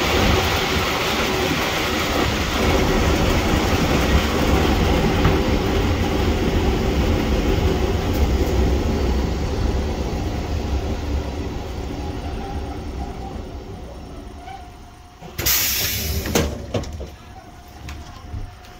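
Passenger train running on the rails, heard from a carriage window, with a steady rumble that fades as it slows into the station. About three-quarters of the way through comes a sudden loud hiss lasting about a second.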